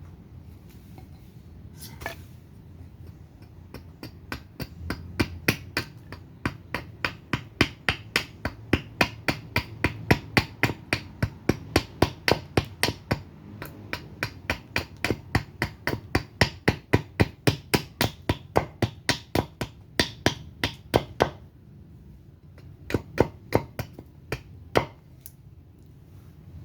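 Axe chopping a surian wood spoon blank: rapid, regular strokes, about two or three a second, with a short pause near the end and then a few more strokes.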